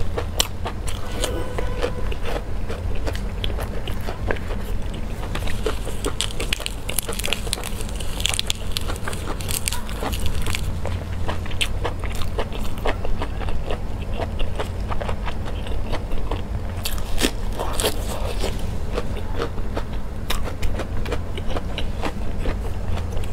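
Close-miked eating: a person biting and chewing food, with many small wet clicks and crunches at an irregular pace over a steady low hum.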